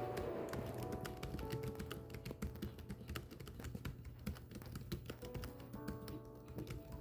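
Typing: a quick, irregular run of keystroke clicks, over soft background music with held notes.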